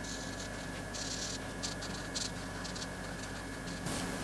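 Jumbo felt-tip marker rubbing on paper in short colouring strokes, a soft scratchy hiss that comes and goes, with a few small ticks, over a faint steady hum.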